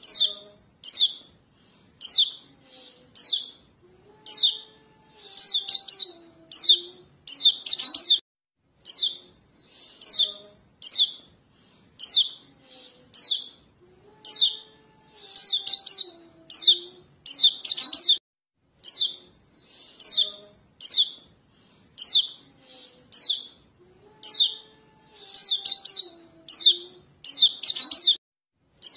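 Young yellow white-eye (kecial kuning) calling for its parents: short high chirps about once a second, with quicker clusters of calls that come back about every ten seconds. It is a recording used as a lure to draw in adult white-eyes.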